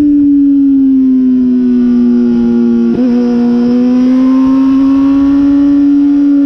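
Sport motorcycle's engine running hard under the rider, heard over wind rush. The engine note sinks as the bike slows into a bend, breaks briefly at a gear change about three seconds in, then climbs steadily as it accelerates again.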